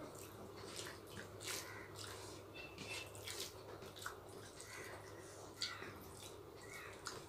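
Faint wet squishing and clicking of hands mixing rice with chicken curry, along with chewing: soft irregular ticks over a low room hum.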